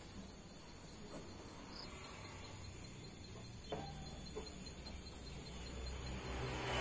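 Quiet farm background: a steady high insect drone with faint, even chirping at about four or five a second, and a few soft knocks.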